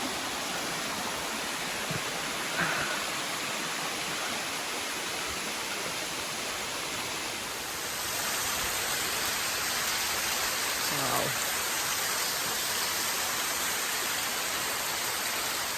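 Waterfall: a steady rush of falling water, a little louder from about eight seconds in.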